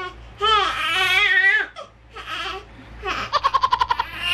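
Newborn baby crying: one long wail, then a shorter cry. Near the end comes a fast stuttering run of sharp pulses, about as loud as the wail.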